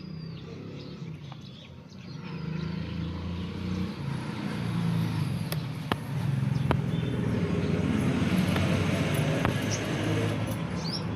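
A motor vehicle's engine running close by, a low steady rumble that grows louder about two seconds in, with a few sharp clicks over it.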